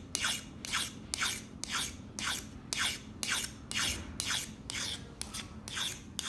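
Steel edge of a leather hole punch being rubbed against an oil-dipped sharpening stone in short scraping strokes, about two a second, as the punch is rotated against it to sharpen it.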